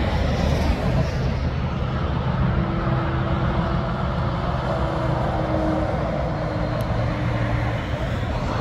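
Heavy truck driving past on a highway: steady engine hum with tyre and road noise. The truck is a Mercedes-Benz Actros pulling an interlink trailer.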